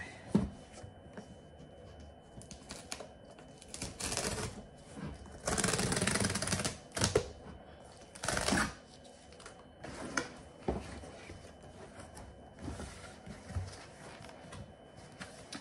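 A cardboard shipping box being opened by hand: scattered clicks, taps and knocks of cardboard being handled, with louder rushes of rustling about four, six and eight and a half seconds in, the one around six seconds lasting over a second.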